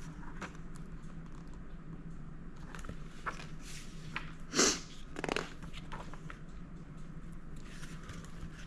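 Quiet room with a steady low hum and scattered faint handling clicks. Two short rustles come about halfway through, the first the louder.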